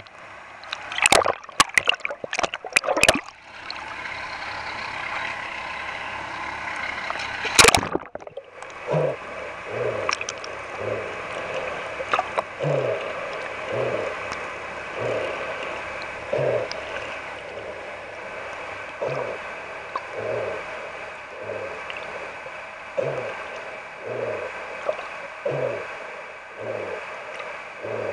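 Sound of a camera underwater: splashes and knocks in the first few seconds and one sharp knock near the middle, then a steady underwater hiss with a soft, muffled whoosh about once a second.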